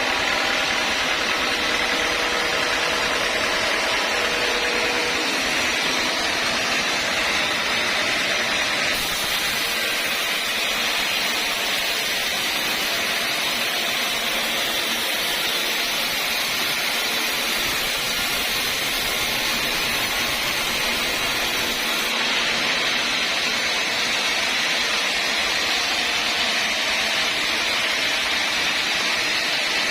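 Sawmill saw running steadily with a continuous, loud machine noise. A higher hiss comes in about nine seconds in and drops away again around twenty-two seconds.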